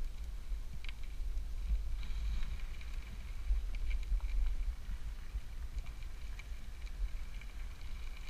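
Wind buffeting the microphone as a mountain bike rides along, a steady low rumble, with a faint thin high tone and light ticks in the background.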